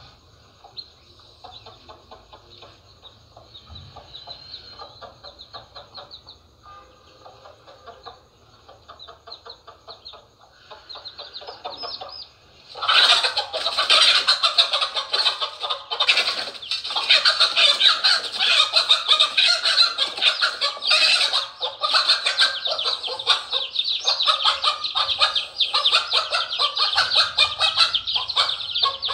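Chicks and ducklings peeping softly and rapidly. About halfway through, it breaks into loud squawking and clucking with loud peeping: the alarm of a hen fighting off a snake that has come at her brood.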